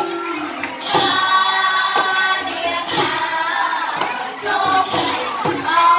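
Girls singing a Khmer trot dance song through microphones, with a drum struck about once a second.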